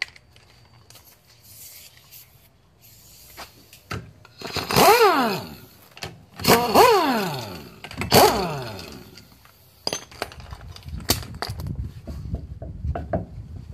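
Pneumatic impact wrench (rattle gun) spinning wheel nuts off a car wheel in three short bursts, each a whine that rises and then falls away. Afterwards come knocks and scraping as the wheel is worked off the hub.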